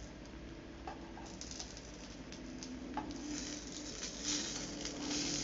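Egg and a tortilla wrap sizzling faintly in a buttered frying pan over low heat, the sizzle growing louder in the second half as the wrap is turned. A couple of light clicks from a plastic spatula against the pan.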